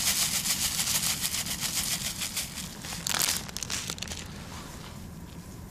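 Dry rustling and crinkling as rolled oat flakes and their packaging are handled and added to a dry groundbait mix. It is dense and busy for about three seconds, with one more burst just after, then dies down.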